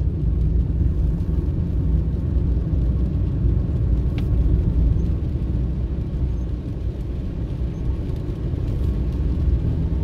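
Steady low rumble of a car driving on a wet road, heard from inside the cabin: engine and tyre noise.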